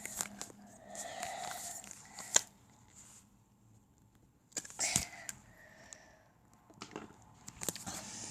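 Small plastic bottles and lids being handled: several sharp clicks and knocks with short rustles between.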